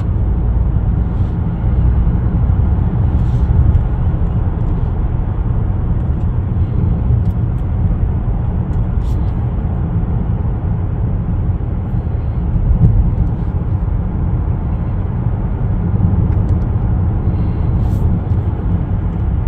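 Steady road and engine noise inside a 10th-generation Honda Accord's cabin while driving: a constant low rumble with a few faint short ticks.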